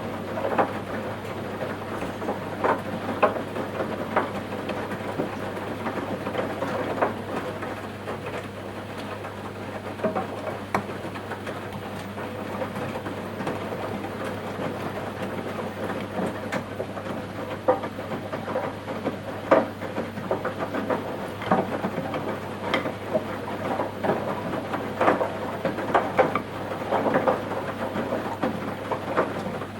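Washing machine mid-cycle: the drum turning with a steady low motor hum while wet laundry and water tumble inside, with irregular splashing, patters and soft thuds.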